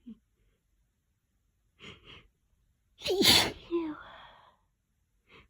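A person's sneeze, loud and wet, about three seconds in, with a voiced cry that falls in pitch and a short hissy, wet tail. Two quick in-breaths come before it and another near the end: the drawn-out catching breaths of a sneeze that is slow to come.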